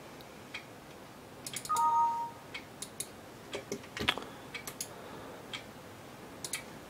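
Scattered computer mouse clicks, with a short two-note electronic beep about two seconds in: a higher note, then a lower one.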